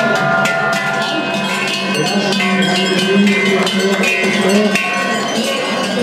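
Many cowbells on a herd of cattle clanging and ringing together, a dense, continuous jangle of overlapping bell tones as the cows walk along.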